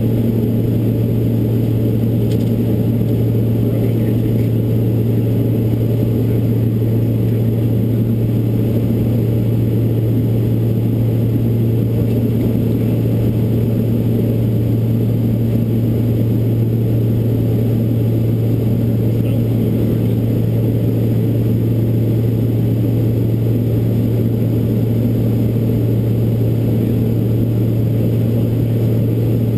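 Beech 1900D's twin Pratt & Whitney PT6A-67D turboprop engines and propellers droning steadily, heard inside the cockpit: a strong, even low hum from the propellers over the engine and airflow noise.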